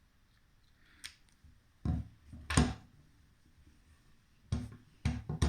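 Sharp clicks and knocks of a survival knife and its attached kit being handled, about five separate strikes, the loudest about two and a half seconds in, with a quick cluster near the end.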